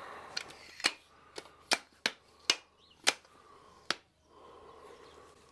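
Telescoping ladder clicking as its sections are pulled apart and latch into place: about seven sharp clicks at uneven spacing over three seconds, ending about four seconds in.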